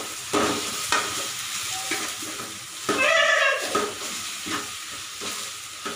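Metal spatula scraping and stirring in an aluminium kadai while egg and shredded vegetables sizzle in hot oil, with repeated scraping strokes. A short high-pitched sound rises over it about three seconds in.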